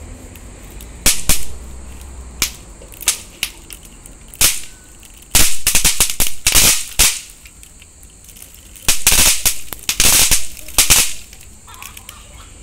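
Snap pops (pop-pop crackers) dropped in a handful onto a concrete floor, cracking as they land: scattered single snaps over the first few seconds, then two dense flurries of rapid cracks about five and nine seconds in.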